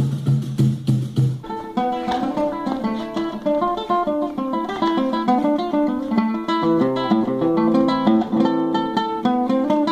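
A cuatro, a small four-string guitar, strummed and picked in a quick run of notes and chords. Before it, in the first second and a half, a shaker plays over a held low note.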